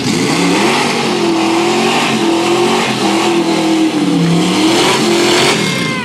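Big-block Chevy V8 in a Chevelle revving hard, its pitch rising and falling over and over, then dropping away near the end as the car pulls off.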